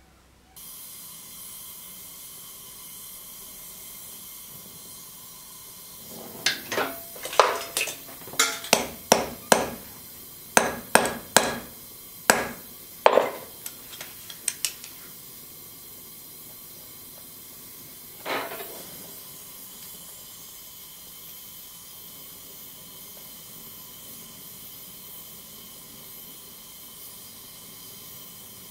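Hammer blows on metal on an anvil: a quick run of about a dozen sharp, ringing strikes, then a single strike a few seconds later, over a steady hiss.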